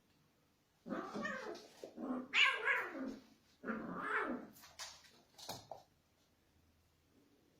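Domestic cat calling: several drawn-out, wavering cries over the first few seconds, then a couple of short ones about five seconds in.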